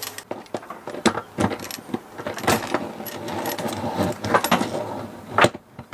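Metallic clinks and rattles of a chrome pull-out shower tap and its braided steel hose being handled and pushed into the tap hole of a stainless galley sink. Irregular clicks and knocks, the sharpest near the end.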